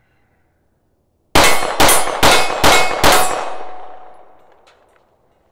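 Five handgun shots fired in a steady, even cadence, about two a second, at a steel target, with a long echo trailing off after the last one. The rhythm is clean, with no stutter between shots: a smooth string free of trigger freeze.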